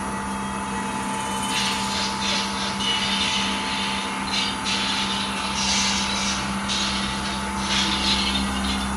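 A steady mechanical hum, with irregular short bursts of hiss over it.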